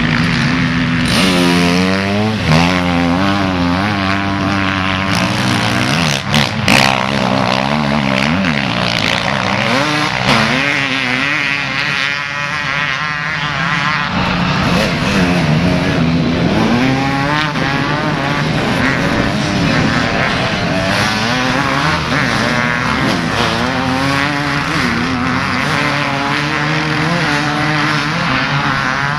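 Off-road motorcycles and a quad bike racing, several engines overlapping and revving up and down in pitch as the riders accelerate and ease off. A few sharp knocks stand out about six to seven seconds in.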